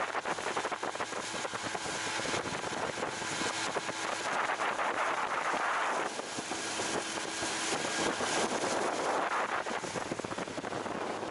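Bass boat underway on open lake water: wind buffets the microphone over the rush of water along the hull, rising and falling in surges, with a faint steady hum from the outboard motor.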